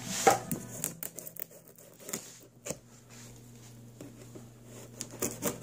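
Cardboard shipping box being handled and opened: irregular scrapes, taps and rustles, loudest about a quarter-second in and again near the end.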